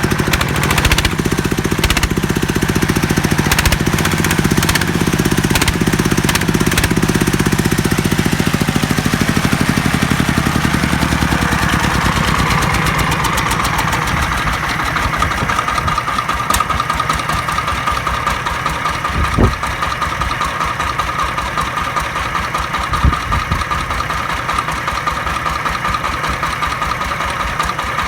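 Rebuilt Jiangfa D30 diesel engine running steadily, with a rhythmic knocking beat. About twelve seconds in, its deep throb fades and a steady whine takes over, with two sharp knocks later on.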